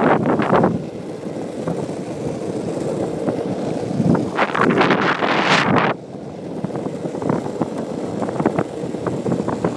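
Longboard wheels rolling over smooth asphalt, a steady low rumble. Rushes of wind on the microphone at the start and again from about four seconds in for about two seconds.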